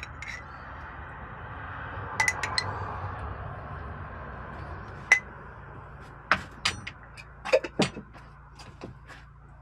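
Spoon clinking and scraping against a glass jar and dishes while salsa is spooned onto nachos: scattered sharp clinks, several in quick succession in the second half, over a steady low hum.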